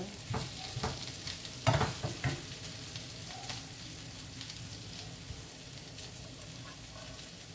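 Zucchini, onion and meat sizzling in oil in a nonstick frying pan. A wooden spatula stirs and knocks against the pan during the first two seconds or so, with the loudest knock near two seconds in. Steady sizzling follows.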